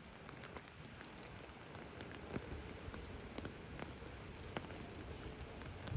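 Steady rain falling, with scattered sharper drops landing close by.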